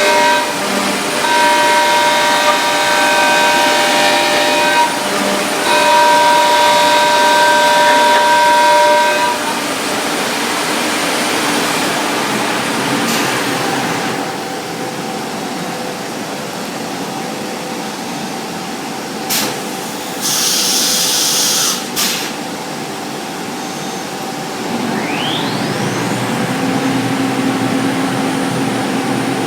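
Biesse Rover CNC router machining a wooden door: a high multi-tone spindle whine while cutting, easing to a steadier drone after about ten seconds. About twenty seconds in there is a short burst of hiss, and near the end a rising whine gives way to a lower steady hum.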